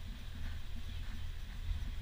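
Lagoon 400 catamaran under way, heard from its deck: a steady low rumble with wind buffeting the microphone.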